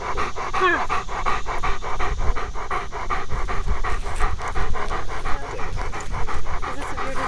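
A search-and-rescue dog panting rapidly, about five pants a second, heard very close from a camera on its own harness.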